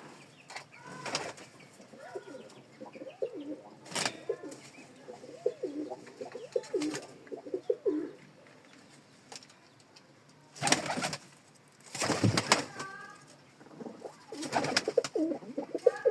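Domestic pigeons cooing over and over in short low calls, broken by several brief loud rustling noise bursts.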